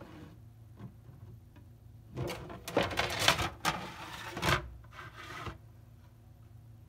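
Plastic Lego road baseplates slipping and scraping across a tabletop, a noisy run of scrapes and clatter about two seconds in that lasts a couple of seconds, with a softer scrape shortly after.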